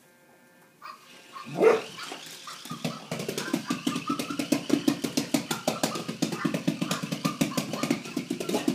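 A beagle barks once, loudly, in play, about a second and a half in. From about three seconds in, a rough, rapidly pulsing noise follows without a break.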